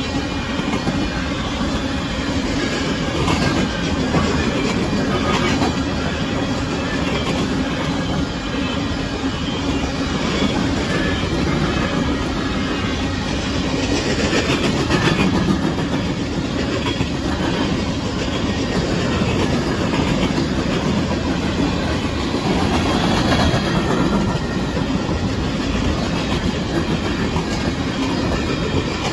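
Empty coal cars of a Union Pacific freight train rolling steadily past at track level: a continuous rumble with the wheels clattering over the rails, swelling slightly a few times as cars go by.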